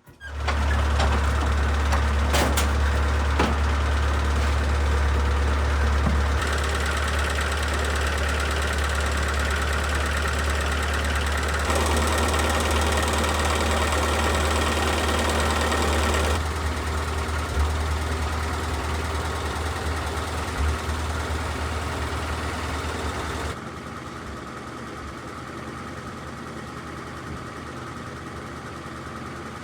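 A machine's motor starts and runs with a steady low hum and a whirring noise above it. The sound shifts abruptly several times, and is quieter over the last few seconds.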